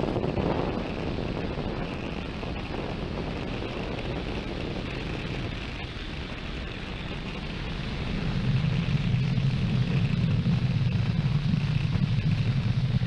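Launch roar of a Falcon 9 first stage's nine Merlin engines during ascent: a steady, crackling rumble that grows louder and deeper about eight seconds in.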